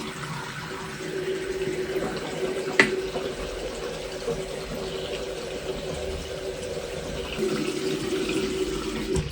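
Water running steadily, as from a tap, with a steady hum beneath it and one sharp click about three seconds in.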